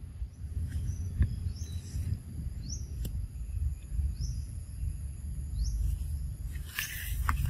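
Outdoor ambience over a low rumble, with a short rising chirp call repeating about every second or so. There are two sharp clicks, and a burst of rustling near the end.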